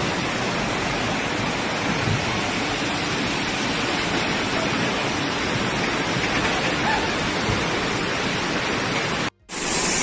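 A steady, even rush of fast muddy floodwater surging through a swollen channel, breaking off for a moment near the end.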